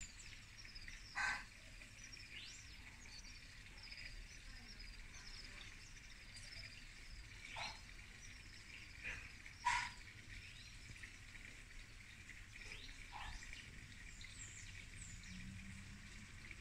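Faint birdsong: many small birds chirping continuously in quick, high downslurred notes. A few louder, short calls sweep downward over it, the strongest about ten seconds in.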